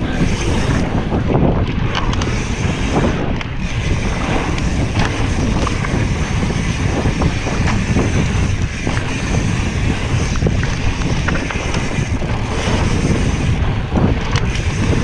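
Wind rushing over the camera microphone while riding a mountain bike down a dirt trail, mixed with steady tyre rumble and small rattles and knocks from the bike over the bumps.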